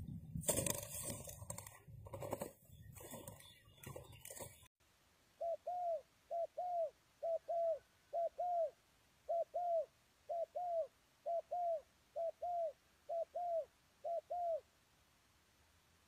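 Loud, irregular rustling noise for the first few seconds, cutting off abruptly. Then a spotted dove cooing: a run of short, arched coos, mostly in pairs, about one pair a second for some nine seconds.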